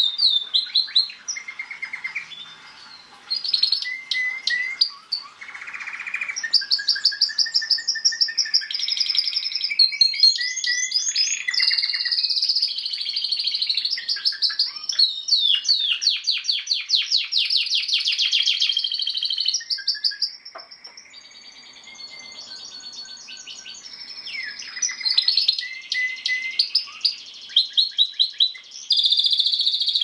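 Domestic canary singing a long, continuous song of fast trills and rapidly repeated high notes, with its densest rolls in the middle and a quieter stretch about two-thirds of the way through.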